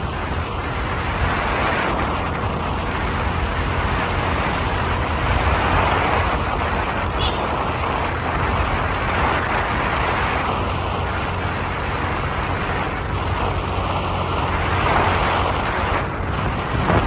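Steady rush of wind and road noise with a low vehicle rumble, recorded while riding along a road. A brief faint tick about seven seconds in.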